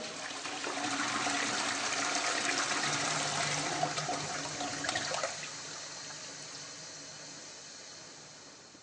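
Toilet flushing: a rush of water that swells over the first second, holds for a few seconds, then slowly drains away.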